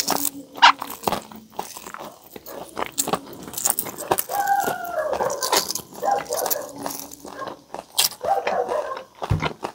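Shell crackling and clicking as a boiled egg is peeled by hand, along with chewing. A dog whines in wavering cries from about four seconds in until near the end.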